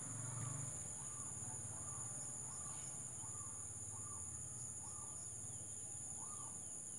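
Steady high-pitched insect drone, with faint short bird call notes repeating every half second to a second.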